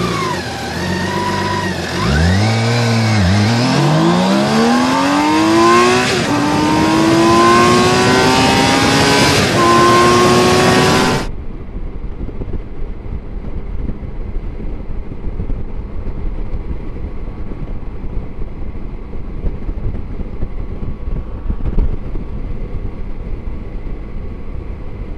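BMW K1600 GTL's inline-six engine revving, then accelerating hard with its pitch climbing, broken by upshifts about six and nine and a half seconds in. From about eleven seconds in there is steady wind rush on the microphone with a faint engine drone as the bike cruises at highway speed.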